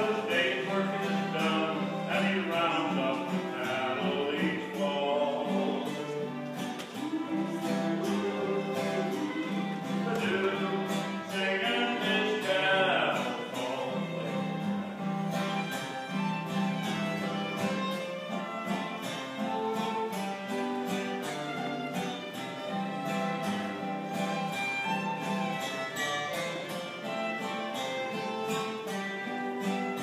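Acoustic guitar strumming a steady rhythm under a fiddle playing the melody of a country song.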